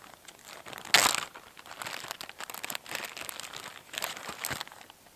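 Plastic Ziploc bag crinkling and rustling as beer cans are handled in it, in a run of irregular bursts, the loudest about a second in.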